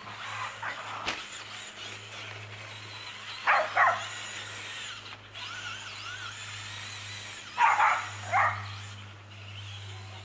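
Dog barking: two barks about three and a half seconds in, then three more near eight seconds, as it chases a radio-controlled car. In between, the car's brushless electric motor whines faintly, rising and falling.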